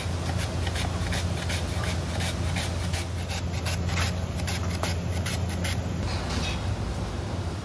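Cucumber being pushed rapidly back and forth over a plastic julienne mandoline slicer, a run of quick rasping strokes that stops about six seconds in. A steady low hum runs underneath.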